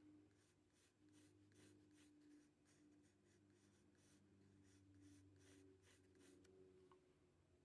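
Faint scratching of a graphite pencil drawing on paper, in short repeated strokes about three a second; the strokes stop near the end.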